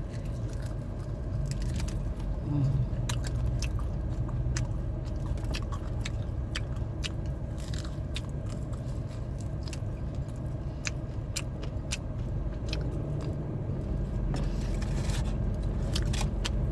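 A person biting and chewing crispy fried chicken, with many sharp crunches. A steady low hum runs underneath.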